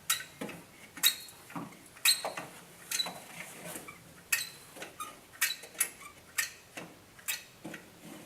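Caulking gun dispensing construction adhesive: a string of sharp ratchet clicks from the trigger being squeezed, about one or two a second.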